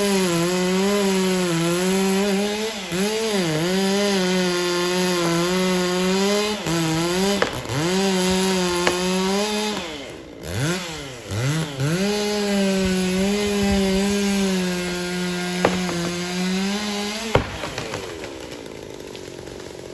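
Chainsaw running at high revs, its pitch dipping again and again as it bogs down in the cut. About ten seconds in it drops sharply twice and revs back up, then it stops abruptly near the end, leaving a quieter hiss.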